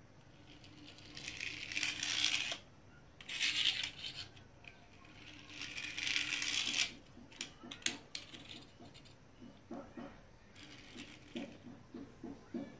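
Die-cast toy car's wheels rolling and scraping on a tile floor in three stretches of a second or two each, followed by scattered light clicks and a run of quick rattling taps.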